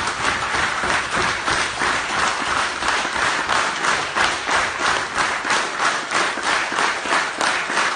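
Audience applauding, the clapping settling into a steady unison rhythm of about three claps a second.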